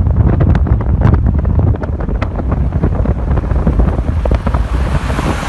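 Heavy wind buffeting on the microphone from a moving car, with the car running underneath; the buffeting is strongest in the first two seconds, then eases.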